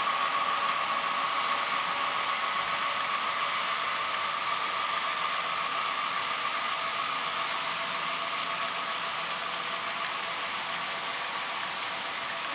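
Model railroad freight cars rolling past on curved track: a steady fine rattle of small metal wheels on the rails with a steady high-pitched hum, slowly getting quieter as the train goes by.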